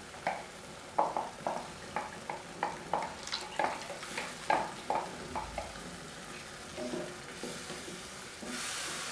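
Wooden spatula stirring and scraping wet masala paste in a kadhai, with a series of short knocks against the pan over the first five seconds. A faint sizzle of the frying paste, with water just added, grows louder near the end.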